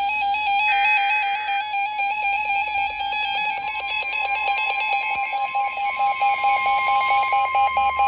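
A short buzzing EAS digital header data burst about a second in, over background music. From about three and a half seconds in, the Emergency Alert System attention tone sounds: a steady two-tone alarm that announces the next warning.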